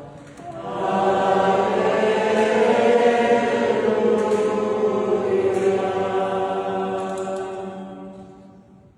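Choir singing a slow chant in long held notes, swelling about a second in and fading out near the end.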